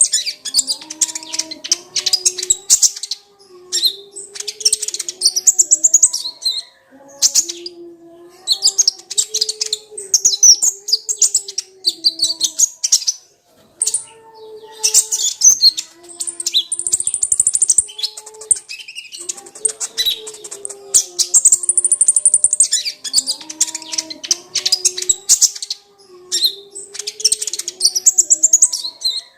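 Kolibri ninja sunbird singing: rapid, high twittering phrases of one to three seconds, repeated with short gaps. A quieter, lower wavering tone runs beneath.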